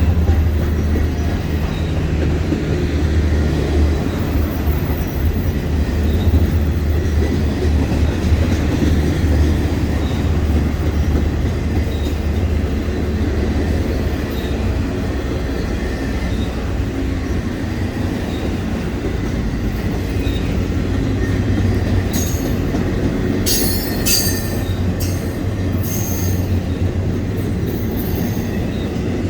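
BNSF stack freight train rolling past close by: a steady low rumble of steel wheels on the rails. Near the end come a run of short, sharp high-pitched squeals from the wheels.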